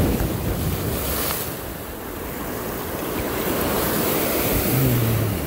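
Sea surf washing and breaking against a rocky shoreline, with wind buffeting the microphone.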